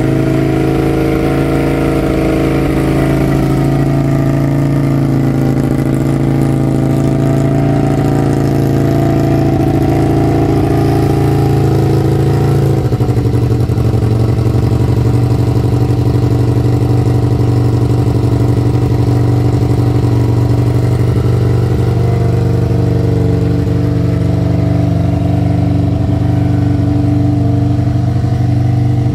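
Aprilia RSV 1000R's 60-degree V-twin engine idling steadily, its idle speed dropping slightly about thirteen seconds in.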